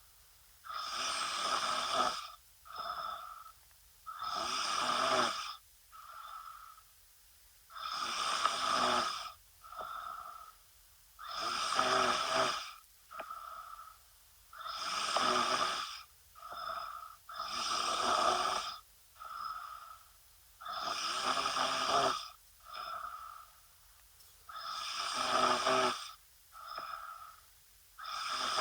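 A sleeping woman snoring in a slow, regular rhythm: a loud snore about every three to three and a half seconds, each followed by a shorter, fainter breath sound.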